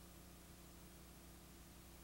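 Near silence: a faint steady hum with hiss.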